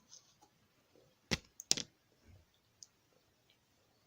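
A metal spoon clicking twice, about half a second apart, against a baby-food pot or teeth during a first taste.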